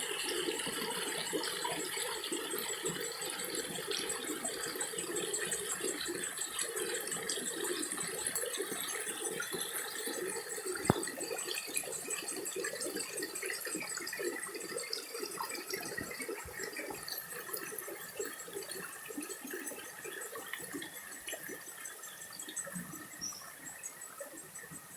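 Flowing water, steady and then growing gradually quieter over the last several seconds, with one sharp click about eleven seconds in.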